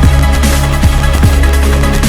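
Electronic dance music with a deep, held bass line and a regular kick drum.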